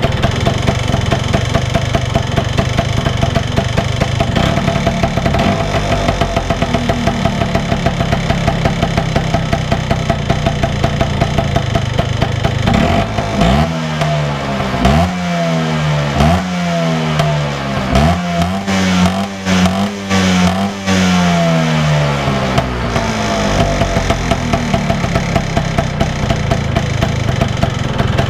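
Vespa PX 177's two-stroke single-cylinder engine breathing through a Sito Plus exhaust, idling with a steady pulse. About halfway through it is blipped three times in quick succession, then held at higher revs for a few seconds before dropping back to idle.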